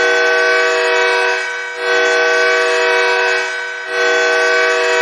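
Custom ice-hockey goal horn sounding a steady multi-note chord in three long blasts, signalling a goal; the third blast is still sounding at the end.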